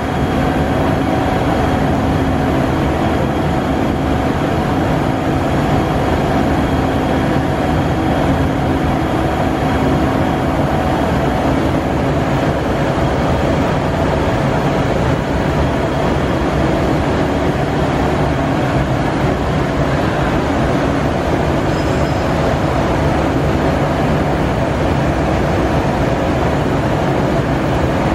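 Kuraki AKB-13 horizontal boring mill's 5.12-inch spindle running at about 1000 rpm: a loud, constant machine hum with several steady tones.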